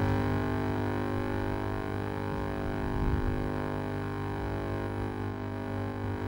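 Steady electrical mains hum with a buzzy stack of overtones, holding one unchanging pitch throughout, of the kind a sound system or microphone line picks up.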